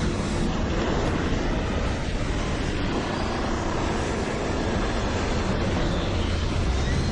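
Strong tornado-force wind blowing in a steady, unbroken rush, heaviest in the low rumble.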